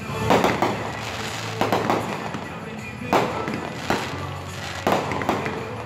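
Fireworks bursting overhead: about seven sharp bangs at irregular intervals, some in quick pairs a third of a second apart, each with a short crackling tail.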